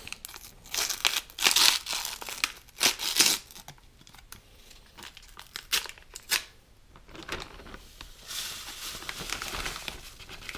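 Paper packet of grape gelatin powder crinkled and torn open, a dense crackling in the first few seconds. Later comes a steady hiss as the powder pours into a plastic zip-top bag.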